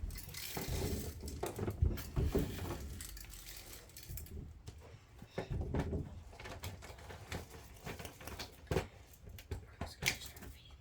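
Plastic toy farm vehicles being handled: irregular clicks, knocks and rustling.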